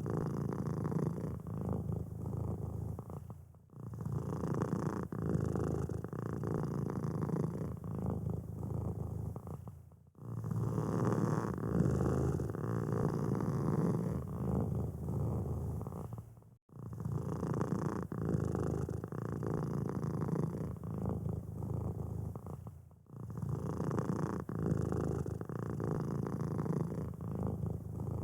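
Domestic cat purring close up, a steady low rumble that breaks off briefly about every six or seven seconds.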